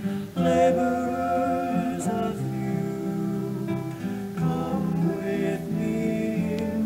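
Offertory hymn: singing with instrumental accompaniment.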